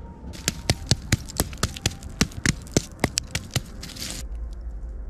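Wood campfire crackling, with sharp pops several times a second over a light hiss, which cut off suddenly near the end and leave a low steady rumble.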